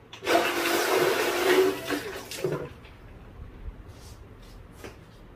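Water gushing out of a Cooper Cooler drink chiller into a stainless steel travel mug, as the excess melt water is drained off; it runs for about two seconds and stops, followed by a few faint clicks.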